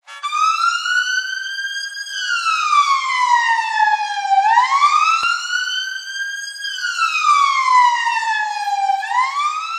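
Siren wailing: a single tone slowly rising and falling in pitch, one full up-and-down cycle about every four and a half seconds.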